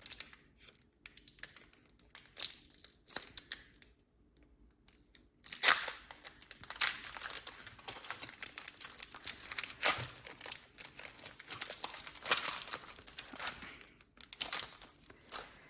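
A Pokémon booster pack's foil wrapper crinkling as it is handled and torn open, with sharp rips about five and a half seconds in and again near ten seconds, then more crinkling.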